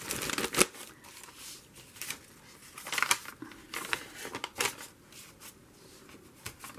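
Paper rustling as magazine pages and a sheet of watercolour-painted paper are handled, in several short bursts: about half a second in, around three seconds in and again just before five seconds.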